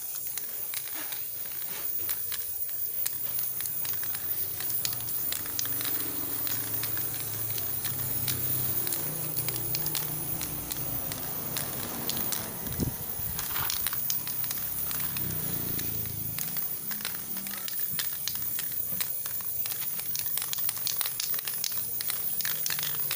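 Aerosol spray paint can hissing as it sprays, with scattered light crackles.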